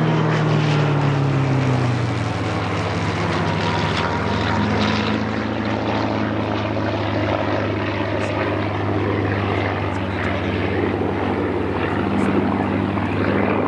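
Piston engine of a vintage propeller warbird running loud. Its pitch drops over the first couple of seconds as it passes, then it settles into a steady drone.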